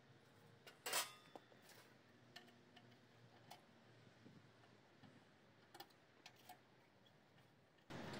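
Faint metallic clicks and clinks as a diamond cutting blade is fitted to a Cedima CTS 56 stone-cutting table saw and its saw head is handled, with one louder clank about a second in.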